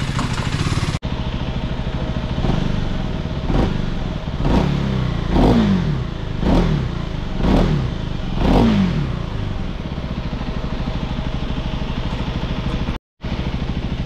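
Motorcycle engine idling at a standstill, then blipped about seven times, roughly once a second, each rev dropping straight back to idle, before idling steadily again.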